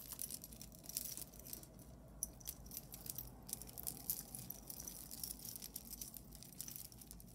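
Faint, scattered clicking and clinking of beads and chain as a multi-strand beaded necklace is handled.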